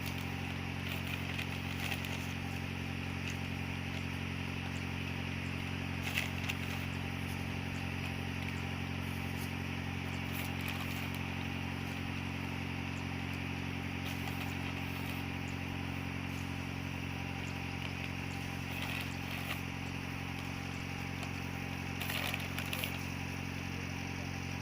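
A diesel engine, likely a tractor packing silage, runs at a steady speed with an even drone and no change in revs. A few brief knocks or clicks sound over it about six seconds in and near the end.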